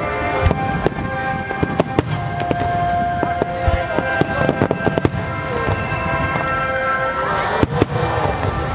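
Aerial firework shells bursting in quick succession, a rapid string of sharp bangs and crackles, with music playing underneath.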